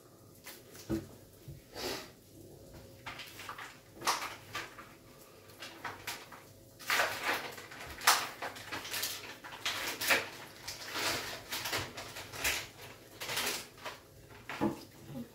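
Hands laying slices of cheese onto puff pastry on baking paper: irregular rustles of the paper and slices and soft pats of fingers on the dough, sparse at first and busier in the second half.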